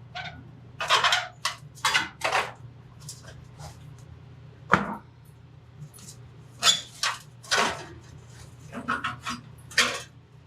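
Scattered short knocks, clatters and rubs of metal tools and parts being handled, about a dozen irregular strokes, over a steady low hum.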